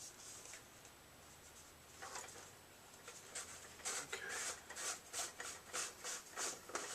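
Hands handling a small plastic LED camping lantern: faint rubbing and scraping, starting about two seconds in and becoming a run of short scrapes, about two a second.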